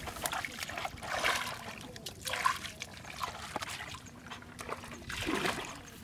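Irregular splashing and squelching of shallow muddy water and wet mud, with louder bursts about a second in and near the end.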